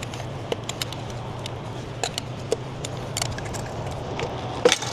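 Scattered clicks and knocks of a screwdriver and clamp as an old intercooler boot clamp is worked off the charge-air pipe, the loudest knock near the end.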